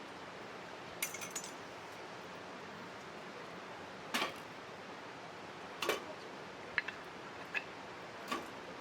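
Six short, light clinks and knocks, a few seconds apart, from small hard objects being handled, over a steady hiss.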